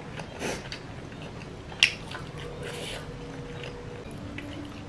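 Close-up eating sounds: soft chewing and mouth noises with a few small clicks, and one sharper click just under two seconds in.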